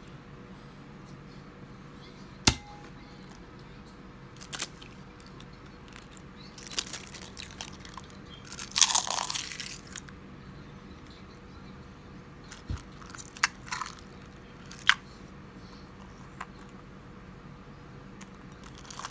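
Raw eggs cracked into a glazed bowl and their shells crushed by hand. There is a sharp knock about two and a half seconds in, a longer crunchy crackle of shell near the middle, and a few scattered clicks later on.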